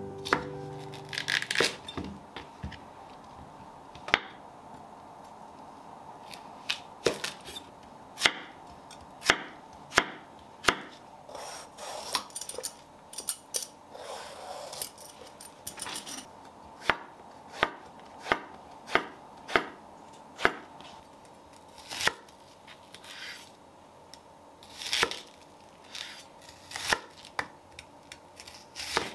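Chef's knife chopping vegetables on a wooden cutting board: sharp, irregular knocks of the blade hitting the board, in quick runs with short pauses.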